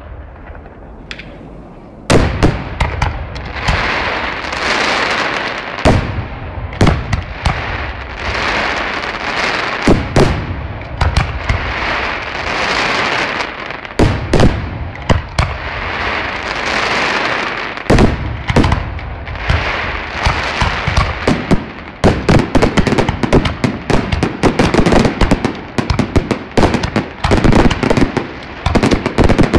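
Aerial fireworks display: heavy shell bursts about every four seconds over a continuous crackling hiss of burning stars, turning into a rapid run of bangs in the last third.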